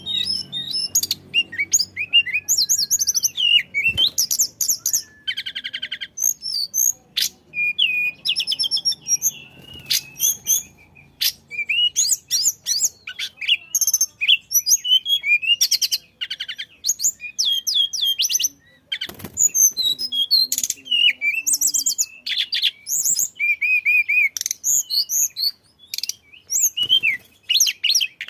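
A tledekan songbird singing non-stop: a fast, varied run of high, sharp whistled notes, trills and chatters with only brief pauses between phrases.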